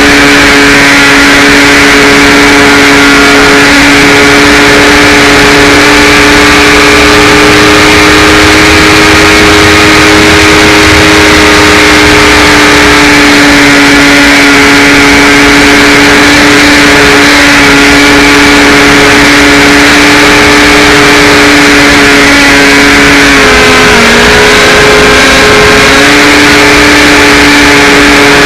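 Electric motor and propeller of a HawkSky RC glider whining steadily at close range, over a rush of wind noise. The pitch dips briefly near the end, as the throttle is eased, and then comes back up.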